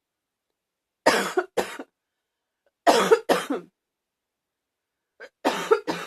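A person's barky cough: three bouts of two sharp coughs each, roughly two seconds apart.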